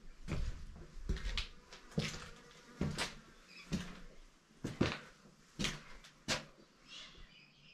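Footsteps of a person walking at a steady pace, roughly one step a second, each step a short sharp crunch.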